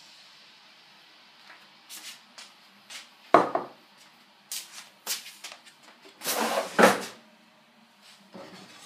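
Knocks and clatter of kitchen things being handled: a string of short sharp knocks, loudest a little past three seconds in and a bunched rattle between six and seven seconds in.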